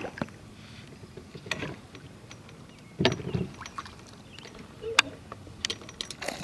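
A few scattered knocks and clicks, with a duller thump about three seconds in, over a faint steady background.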